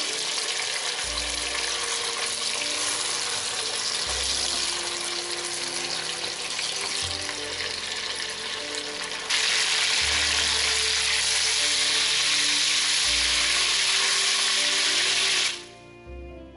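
Pork neck steaks frying in butter and olive oil, a steady sizzle that grows louder about nine seconds in and stops abruptly near the end. Background music plays underneath.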